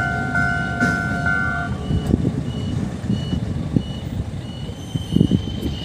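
Level-crossing warning bell ringing in a two-tone pattern about twice a second, cutting off about a second and a half in. It is followed by a low rumble of heavy traffic with scattered knocks and a short high beep repeating about twice a second.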